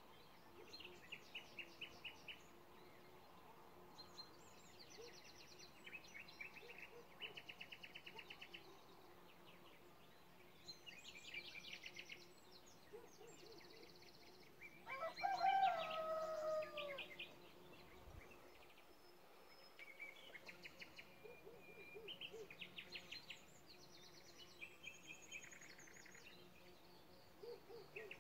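Small songbirds singing in short, rapid trills of repeated notes, again and again. About halfway through, one louder, longer call falls in pitch.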